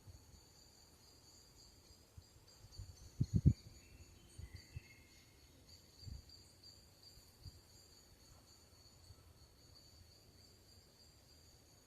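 Insects trilling in a steady, high, continuous drone, with a few low thumps, the loudest a quick cluster of three about three seconds in.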